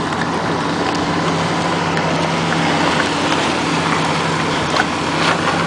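Wind buffeting the microphone, a steady rushing noise, with a faint low hum that comes and goes.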